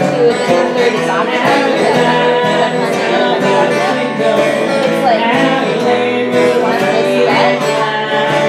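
Fiddle and acoustic guitar playing a bluegrass-country tune together, with a woman singing the melody over them.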